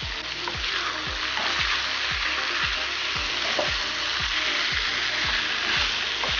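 Potato and pea curry sizzling steadily in the pan on the flame, with a few faint clicks of a spoon. A steady low beat runs underneath, about three thumps a second.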